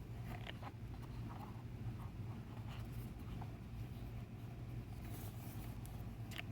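Quiet paper handling as photobook pages are turned: a few soft rustles and light ticks over a steady low hum.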